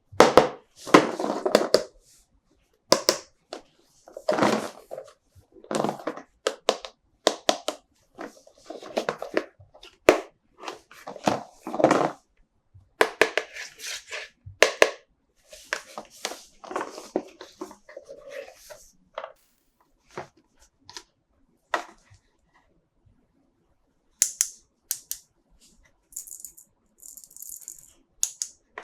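Close-up handling of plastic toys and their packaging: a dense run of clicks, taps and crinkles, thinning out in the last several seconds to a few scattered clicks and brief high crinkles.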